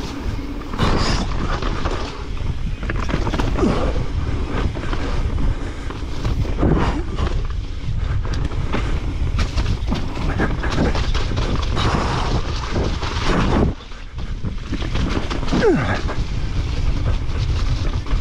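Transition Spire mountain bike riding fast down a dirt trail: tyres rumbling over the ground, the bike rattling and clattering over rough patches, and wind buffeting the microphone. The noise drops briefly about 14 s in.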